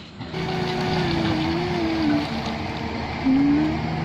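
Excavator's diesel engine working, with a tone that wavers up and down in pitch as the machine moves, and a brief louder rise near the end.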